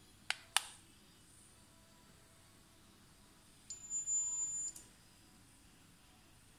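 Geratherm NonContact infrared thermometer: two button clicks, then about three seconds later one high electronic beep lasting about a second, signalling the reading is done. The display lights green at the same time, which on this thermometer means a normal temperature, not a fever.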